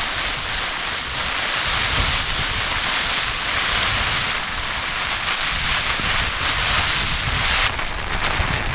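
Strong wind buffeting the microphone: a dense, steady rush with rumbling low gusts. It changes abruptly and thins out shortly before the end.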